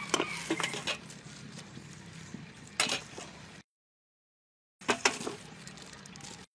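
Seasonings going into a stainless steel bowl of raw chicken feet: sharp taps and clicks over a low steady hum, in two short stretches with a dead-silent break between them.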